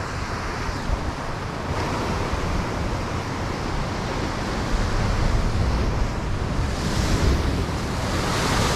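Sea surf breaking and washing over rocks in a steady rush that swells now and then, with wind buffeting the microphone.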